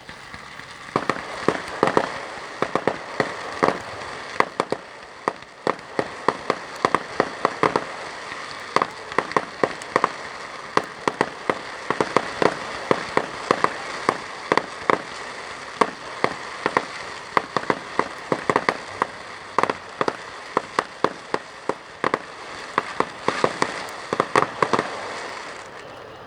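Fireworks going off in quick succession: a dense run of sharp bangs and crackling over a steady hiss. It starts about a second in and dies away near the end.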